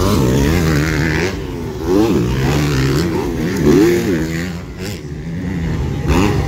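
Motocross bikes racing, their engines revving up and down with the pitch rising and falling over and over as riders work the throttle through the track.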